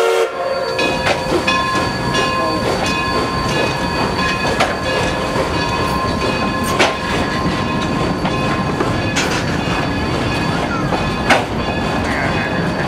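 Narrow-gauge train cars rolling by at low speed: a steady rumble of wheels on rail, with a thin steady squeal from the wheels and sharp clacks over the rail joints every couple of seconds.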